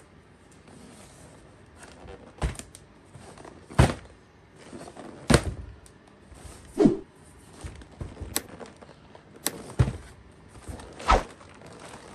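A series of thunks and knocks, about one every second and a half, as a toy kit box and its packaging are handled.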